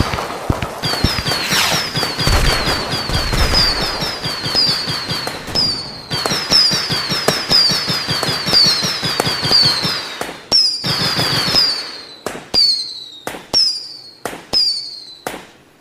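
A string of firecrackers going off in rapid succession. Each crack is followed by a short, high falling tone. About twelve seconds in the bangs thin out to single cracks less than a second apart, then stop.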